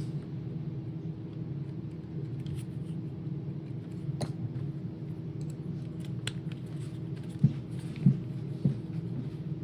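A few sharp clicks and soft knocks as small plastic parts of a Roomba robot vacuum are handled and oiled, over a steady low hum.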